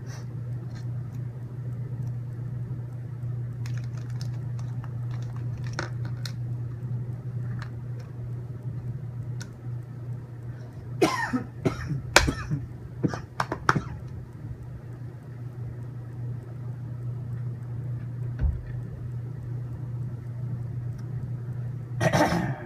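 A person coughing and clearing his throat, a fit about halfway through and another near the end, put down to allergies. Scattered small clicks and a steady low hum run underneath.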